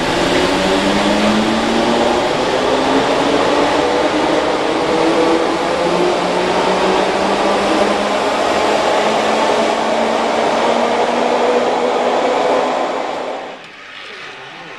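Merseyrail third-rail electric multiple unit pulling out of an underground platform: loud running noise with a traction motor whine that rises in pitch as it accelerates. It cuts off suddenly about a second before the end, leaving a quieter hum.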